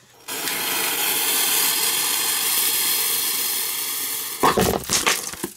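Xplode 'Partyfieber' table firework: its fuse hisses steadily, spitting sparks, for about four seconds, then the firework goes off with a loud pop, followed by a quick scatter of small knocks.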